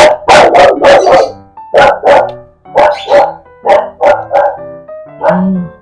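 A dog barking repeatedly, about a dozen sharp barks in quick runs, over soft background music.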